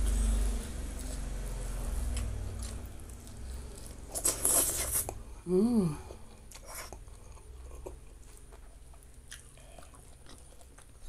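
Close-miked chewing and crunching of a mouthful of food eaten by hand, with a loud crunchy bite about four seconds in, followed by a brief 'mm' hum, then softer chewing.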